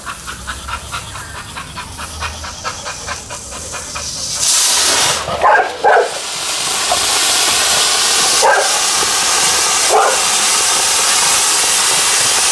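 A dog panting rapidly, then a ground fountain firework bursts into a loud steady hiss of spraying sparks about four seconds in. The dog barks at it four times over the hiss: two quick barks, then two more a few seconds apart.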